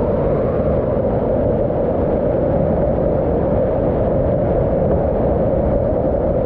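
Whitewater rushing over rock in a steep rapid: a loud, steady, dull rush with little treble.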